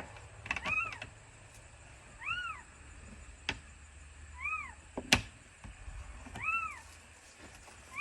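An animal calling: four short calls that rise and fall in pitch, about two seconds apart. Two sharp clicks come between them, about halfway through.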